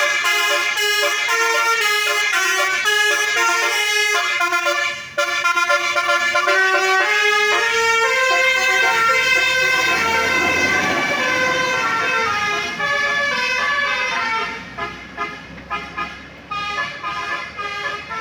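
Basuri telolet musical horn on a tour bus, playing a loud, fast tune of stepped notes that starts suddenly. Around the middle, engine and road noise from the bus swells under it, and near the end the notes come in short, choppy blasts.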